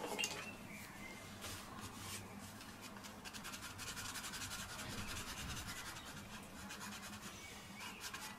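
Pencil shading on sketchbook paper: faint, quick back-and-forth scratching and rubbing strokes, growing denser about three seconds in.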